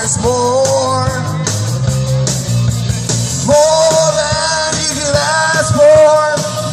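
Live rock band playing: drum kit, bass and electric guitars, with long held melodic notes carried over the top.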